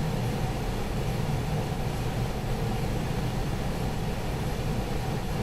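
Steady low rumble and hiss of room background noise, with no distinct events.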